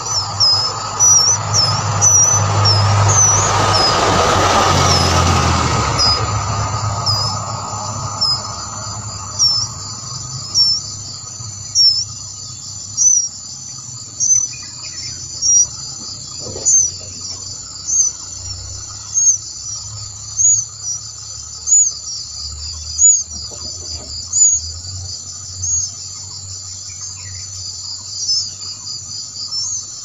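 Steady high insect trilling, with a short high chirp repeating a little more than once a second. A rush of noise rises and fades over the first few seconds.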